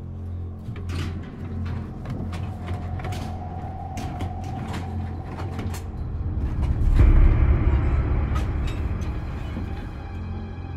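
Steel gates and bars of a livestock squeeze chute clanking and sliding as they are worked, over a steady low engine hum. The clatter gets louder and rumbling about seven seconds in.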